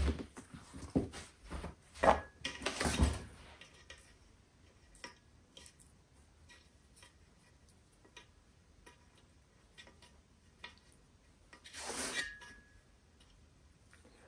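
Kitchen utensils and dishes being handled: a run of knocks and clatter in the first few seconds, then scattered light clicks, and a short scraping swish near the end.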